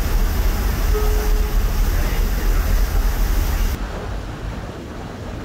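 Wind rushing over the microphone and water noise on the deck of a moving ship: a heavy low rumble with a hiss over it. A short steady tone sounds about a second in, and the rush drops to a quieter, duller level near the end.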